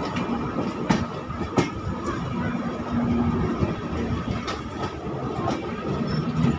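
Indian Railways LHB passenger coaches rolling past at speed: a steady rumble of wheels on rail with occasional sharp clicks.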